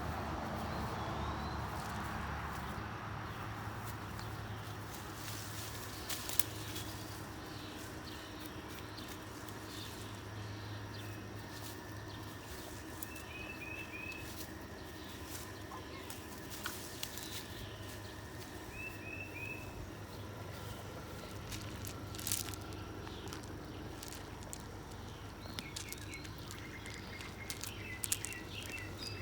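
Outdoor ambience with small birds chirping in short runs of three or four quick notes, several times, over a steady low hum and background noise.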